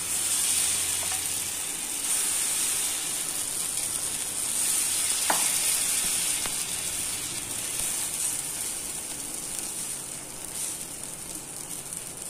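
Vegetable pancake batter sizzling on a hot, lightly oiled iron tawa as it is poured and spread with a steel ladle. The steady hiss starts the moment the batter hits the pan, and there is one brief clink of the ladle about five seconds in.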